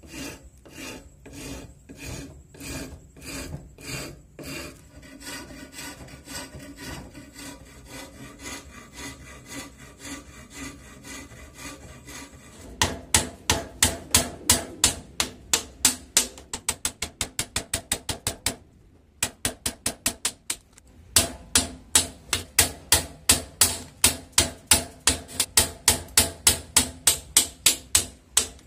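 A flat file rasping across a jackfruit-wood axe handle in even strokes, about two a second. From about halfway a chisel shapes the end of the handle: a fast run of sharp taps, about four a second, with a short pause.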